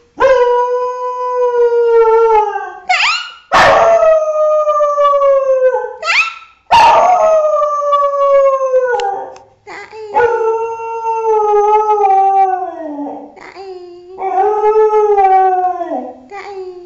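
A dog howling: about five long, drawn-out howls in a row, each dropping in pitch at its end, with short rising yips between them.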